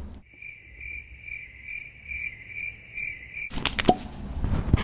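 Crickets chirping: a steady high pulsing trill about two and a half times a second, starting suddenly and cutting off sharply about three and a half seconds in. A brief scratchy, rustling noise follows near the end.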